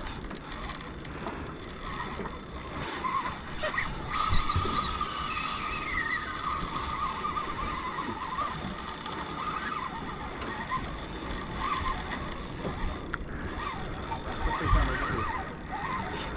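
Big-game fishing reel under load as a hooked tarpon is fought: mechanical ratcheting and clicking, with a steady whine from about four seconds in for several seconds.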